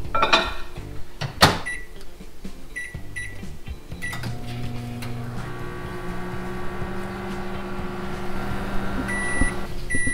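Countertop microwave oven: the door is shut with a knock, the keypad beeps three times as it is set, and the oven starts about four seconds in and runs with a steady hum. Near the end it gives a longer beep, then another short beep.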